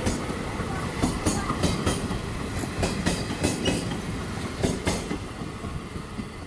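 Passenger train rolling past at speed: a steady rumble with wheels clicking irregularly over the rail joints, getting quieter near the end.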